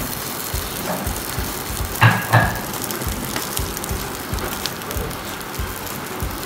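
Kebabs shallow-frying in a little oil in a nonstick pan, with a steady sizzle. About two seconds in, a steel spatula clinks twice against the pan.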